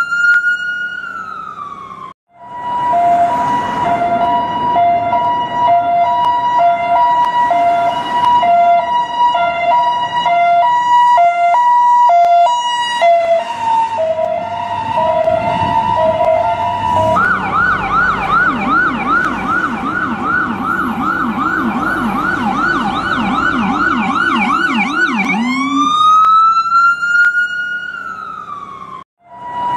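US ambulance electronic siren cycling through its modes. A wail winds down and cuts off about two seconds in, then the siren alternates between a high and a low pitch (hi-lo). About halfway through it switches to a fast yelp of quick rising sweeps, two to three a second. Near the end a long wail rises, then falls and cuts off, with a low vehicle rumble underneath throughout.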